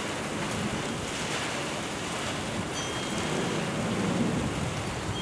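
Steady rain in a thunderstorm, with a low rumble of thunder that swells a little past the middle.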